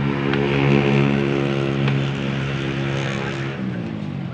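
An engine running at a steady pitch that drops near the end, with a few light clicks over it.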